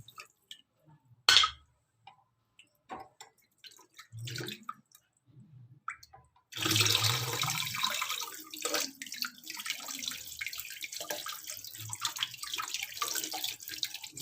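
Water running, which stops at the start, leaving a few scattered clicks and one sharp knock about a second in; the water starts running again about halfway through and keeps going.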